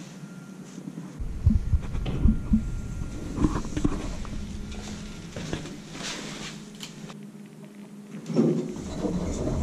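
Footsteps and scuffs on a hard stone floor, with knocks, rustling and rumble from a body-worn camera as the wearer moves, and a louder thump a little before the end.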